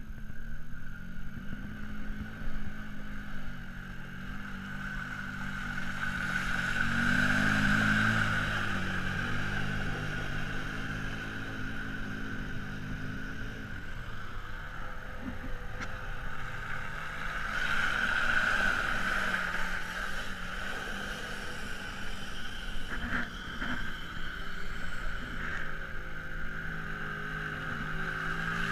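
ATV engine running with a steady whine, picking up speed about seven seconds in and again around eighteen seconds in.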